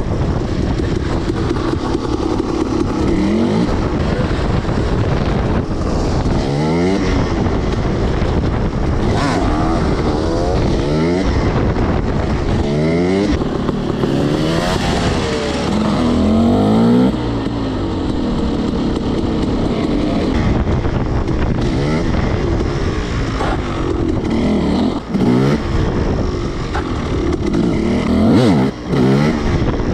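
300cc two-stroke dirt bike engine being ridden hard, its pitch rising and falling again and again as the throttle is opened and the revs drop between gears.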